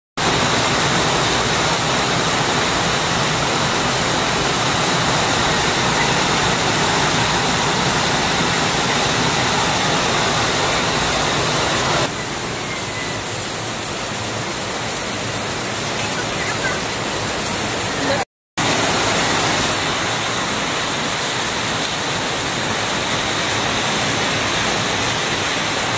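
Heavy rain pouring down onto a flooded street and foliage: a loud, steady hiss of falling water. It drops slightly in level about halfway through and cuts out for an instant about two-thirds of the way in.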